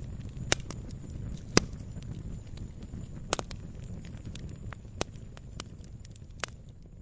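Wood fire burning, with a low steady rumble of flames and irregular sharp crackles and pops from the burning logs. The loudest pop comes about a second and a half in.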